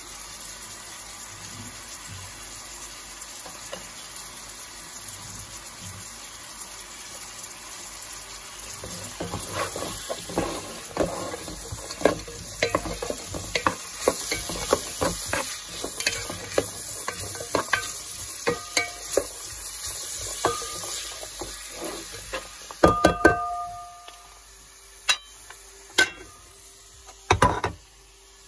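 Chopped onion, ginger and garlic sizzling in hot oil while a wooden spoon stirs them, with many quick scrapes and taps against the pot from about nine seconds in. Near the end come a few louder sharp knocks with a short ring, as the spoon is knocked and laid down on a ceramic plate.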